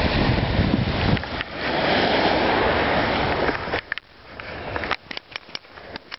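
Surf washing on a sandy beach with wind buffeting the microphone. The noise falls away suddenly almost four seconds in, and then a series of sharp clicks and knocks follows.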